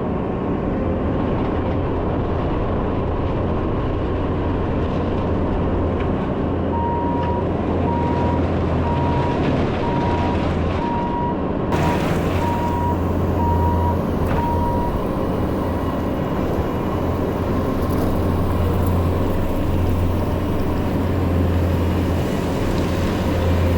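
Bobcat T650 compact track loader's diesel engine running steadily under work, with its backup alarm beeping at an even pace through the middle stretch.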